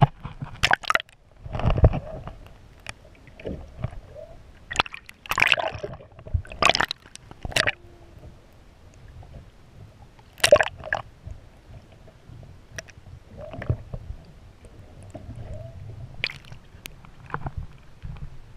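Seawater sloshing and splashing against a camera held at the surface as it dips in and out of the water: irregular sharp splashes over a low watery rumble.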